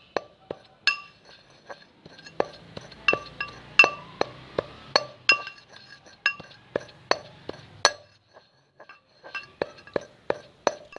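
Rock salt being pounded with a pestle in a chattu mortar: sharp, irregular strikes, about two or three a second, each with a short ringing clink. It stops briefly about eight seconds in. The salt is almost ground fine.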